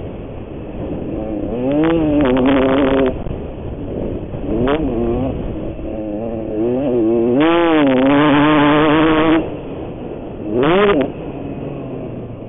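Dirt bike engine revving hard and dropping back again and again as the throttle is opened and closed around a motocross track. The pitch climbs and falls in bursts, the longest and loudest about two-thirds of the way through.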